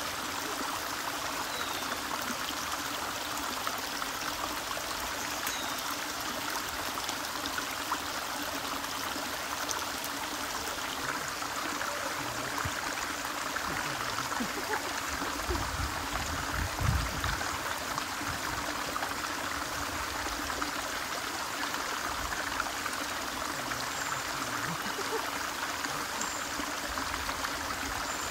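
Shallow stream flowing over a flat rock bed, a steady rush of water. A brief low rumble about halfway through is the loudest moment.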